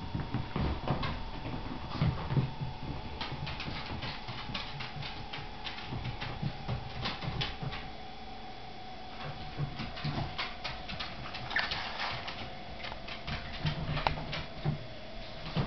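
Boston Terrier puppy playing: many quick clicks and scuffles of paws and claws on the floor, with occasional short low grunting sounds.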